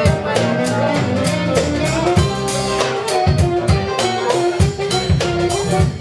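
Live funk band playing a steady groove: saxophone lines over electric guitar, electric bass and a drum kit keeping an even beat.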